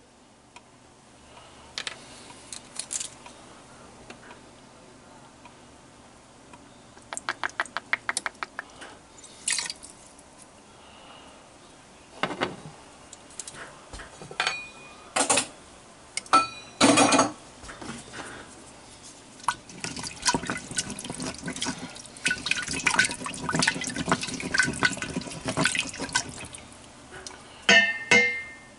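Liquid being poured and splashed into the Instant Pot, Worcestershire sauce going in from its bottle, with scattered clicks and knocks of the bottle and utensils. There is a quick run of about ten ticks around a quarter of the way in, and a busier stretch of splashing and clatter in the last third.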